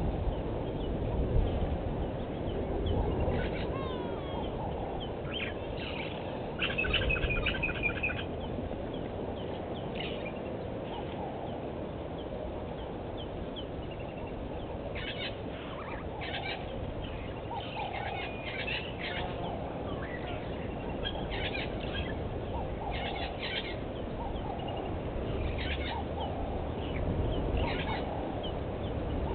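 Wild birds calling in short, repeated bursts of notes, with a busy stretch about a quarter of the way in and more calls through the second half, over a steady low outdoor background.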